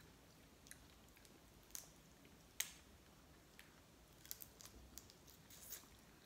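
Faint, scattered clicks and crackles of cooked lobster shell being picked apart by hand, mixed with chewing, with one sharper click about two and a half seconds in.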